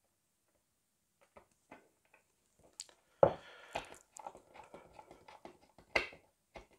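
Small screwdriver driving a self-tapping screw into a plastic model part: a few faint clicks, then from about three seconds in a dense run of crunching clicks and scrapes, with a sharp click near the end.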